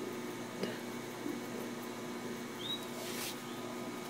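Steady low hum of room tone, with a faint tick about half a second in, a short high chirp late on, and a brief soft hiss just after it.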